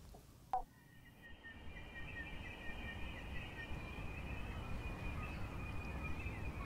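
Near silence, broken by one short falling chirp, then an outdoor ambience rises from about a second in: a low rumbling background noise with a steady high thin tone and a quick, repeated chirping above it.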